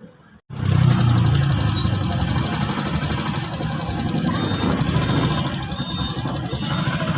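An engine running steadily, starting about half a second in after a brief silence.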